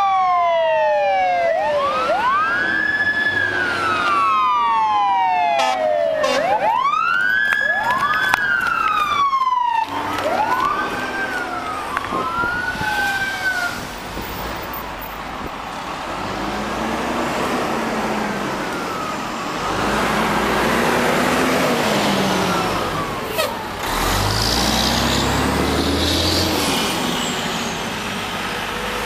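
Emergency vehicle siren wailing in slow rising and falling sweeps, one about every three seconds, then breaking off about fourteen seconds in. After that comes steady traffic and engine noise with fainter sirens, and a deep engine rumble near the end.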